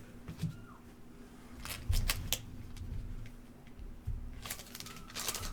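Football trading cards being handled and sorted by hand: a few soft clicks and slides of card stock, busier around two seconds in and again near the end, with a faint short chirp twice.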